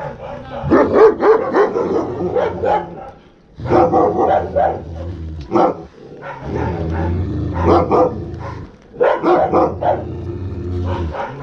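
Alabai (Central Asian Shepherd Dog) barking hard in about four runs of rapid barks, with short pauses between them.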